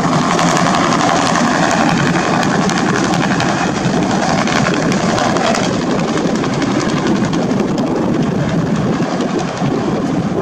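Sheriff's light helicopter with a two-blade main rotor climbing away overhead, the rotor chopping in a quick steady beat over the engine, growing slightly fainter toward the end.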